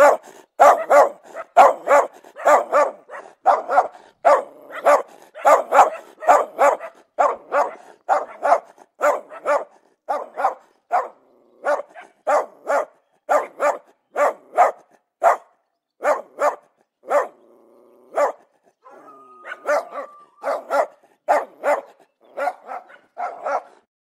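Dog barking aggressively in rapid, evenly repeated barks, nearly two a second. About three-quarters of the way through there is a short break with a drawn-out whine, then the barking resumes and stops just before the end.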